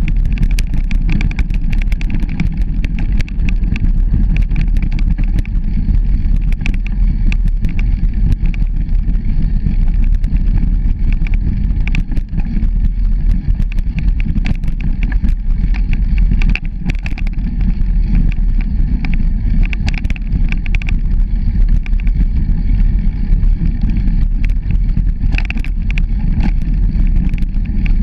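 Bicycle rolling along a rough dirt forest path: a steady low rumble with constant small knocks and rattles over the bumps.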